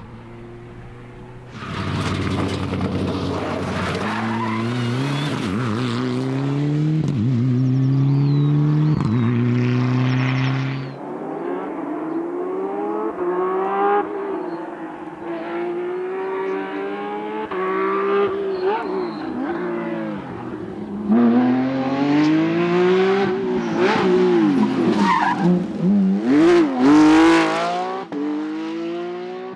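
Rally car engines at full throttle, the pitch climbing and dropping with each gear change as cars pass at speed. Near the end, hard, rapid revving comes with sharp cracks.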